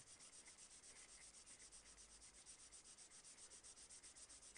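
Faint scratchy rubbing of a colored pencil shaded rapidly back and forth on drawing paper, in fast, evenly spaced strokes, building up a layer of tone.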